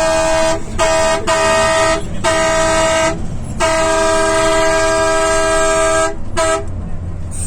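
Multi-tone bus horn honked in a run of blasts: several short toots, then one long blast of about two and a half seconds, then a quick toot near the end, over a low engine rumble.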